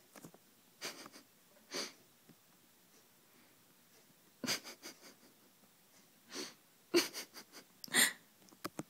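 A person's stifled laughter: short breathy snorts and wheezing puffs of breath in scattered bursts, the loudest two near the end.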